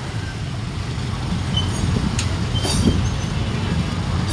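Steady low rumble of passing street traffic, with a sharp click about two seconds in.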